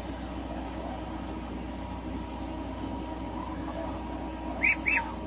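Steady background hum, broken near the end by two quick, high-pitched chirps about a quarter second apart.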